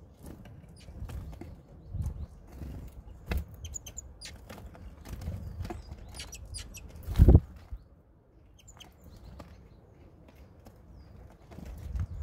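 Great tits landing on, feeding at and flying off a wooden feeder tray: wing flutters and small knocks and rustles among the seed, with a few faint high calls. The loudest sound is a single thump about seven seconds in.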